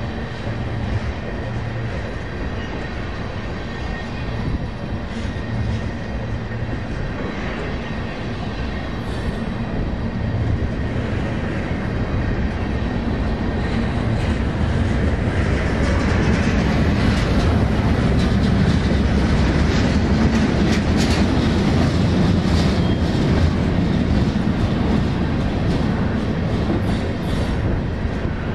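Train rolling past on the rails, its low rumble growing louder about halfway through, with rapid clicking of wheels over rail joints and a thin high squeal from the wheels.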